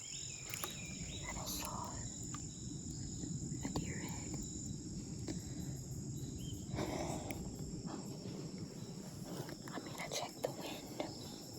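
Steady chorus of crickets and other insects, with a low constant background rumble and a few faint clicks and rustles scattered through.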